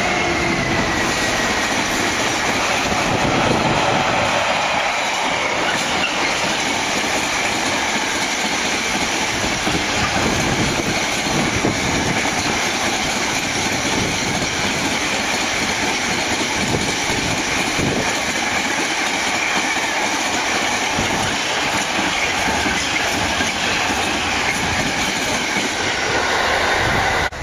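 A long freight train of mostly empty intermodal container flat wagons rolls past at speed behind a Class 66 diesel locomotive. It makes a steady rush of wheel and rail noise with a repeated clatter of wheelsets, and the locomotive's engine fades away in the first seconds.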